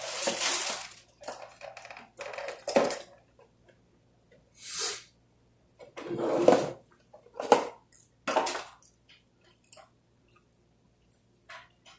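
Irregular rustles, clicks and clatters of food and takeout containers being handled, with eating noises, close to the microphone.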